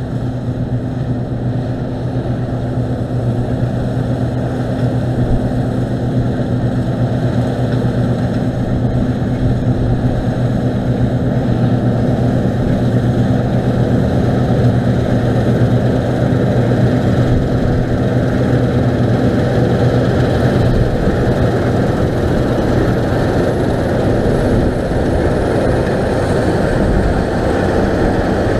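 Claas Lexion 670 TT combine harvester running steadily as it cuts barley: a steady engine hum under a dense mechanical rush, growing a little louder as it draws near.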